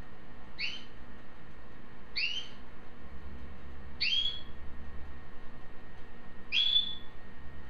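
Belgian canary calling: four short, very high notes, each sweeping quickly upward, about a second and a half apart.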